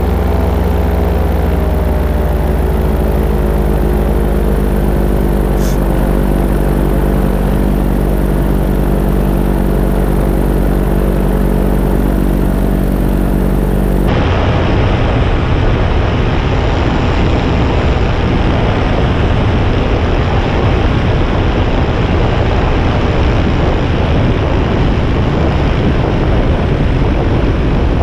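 Paramotor engine and propeller running steadily in flight. About halfway through, the sound switches abruptly from a steady engine drone to a rough, rushing noise.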